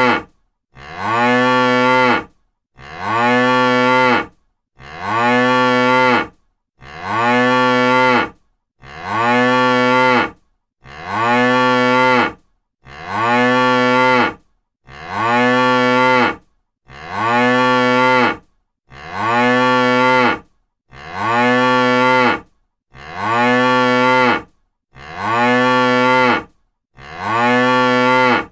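A cow mooing: one long, level-pitched moo about a second and a half long, repeated identically about every two seconds, some fourteen times in a row.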